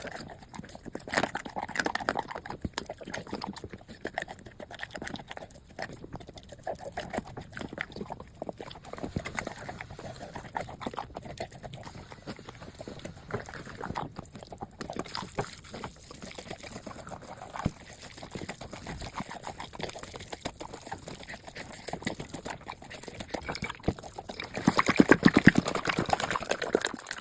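Golden retriever eating a wet meal of noodles in rib soup from its bowl: a steady run of wet chewing and smacking, with a louder pitched stretch near the end.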